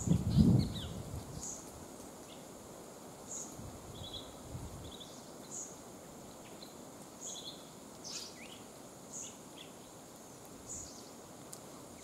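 Forest ambience: small birds chirping in short high notes, and a thin, very high note repeating about every two seconds. A low rumble fills the first second.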